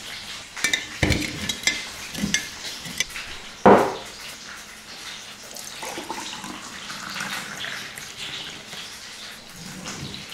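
Clinks and knocks of glass and dishes on a table, with one loud knock about four seconds in, then juice poured from a large glass jar into a drinking glass, the pour rising in pitch as the glass fills.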